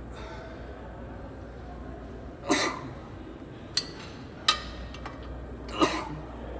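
Leg extension machine being worked through a set: four short, sharp clinks and knocks over about three seconds in the middle, over a steady low hum.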